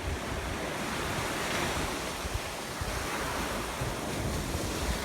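Surf washing onto a beach, its rush swelling and easing, with wind buffeting the microphone.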